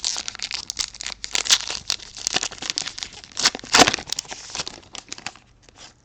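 Foil wrapper of a 2022 Allen & Ginter baseball card hobby pack being torn open and crinkled by hand, a dense irregular crackling that is loudest about three and a half seconds in and thins out near the end.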